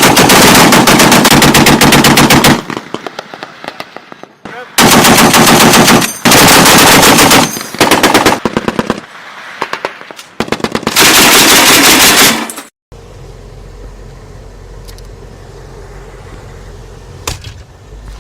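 Browning M2 .50-calibre heavy machine gun firing several long, rapid bursts of evenly spaced shots with short gaps between them. The firing cuts off sharply about 13 seconds in. A steady low rumble follows, with a few faint clicks.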